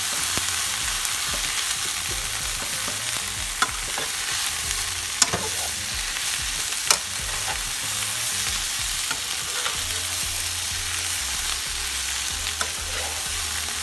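Sliced grilled chicken, onions and green peppers sizzling steadily in a frying pan as they are stirred, with a few sharp clicks of the utensil against the pan.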